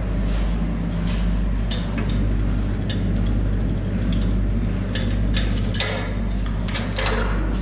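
A steady low mechanical drone runs throughout, with light metallic clicks and clinks scattered through it.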